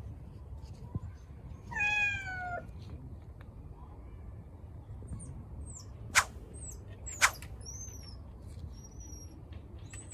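A cat meowing once, about two seconds in, a single drawn-out meow that dips in pitch at the end. Later, high thin bird chirps and two sharp clicks.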